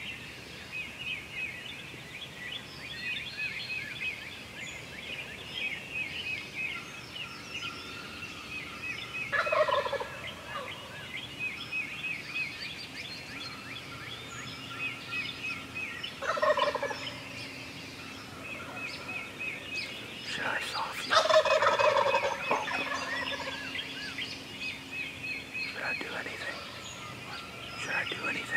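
Wild turkey gobbler gobbling three times, spaced several seconds apart, the last gobble the loudest and longest. Songbirds chirp continuously behind it.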